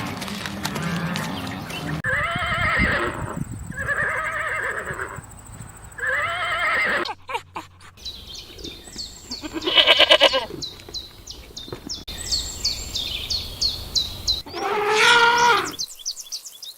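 Farm animal calls from several clips cut one after another: three drawn-out calls, each rising and falling in pitch, then a run of rapid high chirps with a loud call in the middle, and one last drawn-out call near the end.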